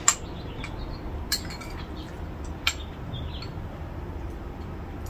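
Metal spoon clinking against a ceramic bowl three times, about a second and a half apart. The first clink is the loudest. Under the clinks runs a steady low background hum.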